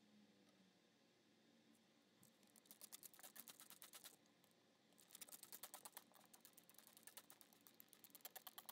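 Hand spray bottle misting plants and the inside of a glass terrarium, squeezed in quick spritzes, about six to eight a second. One short run of spritzes comes a couple of seconds in, and a longer run from about five seconds to the end.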